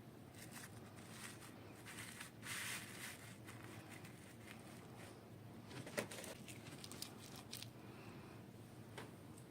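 Faint rustling and crinkling of toy packaging being handled and opened, with a few light clicks; the sharpest click comes about six seconds in.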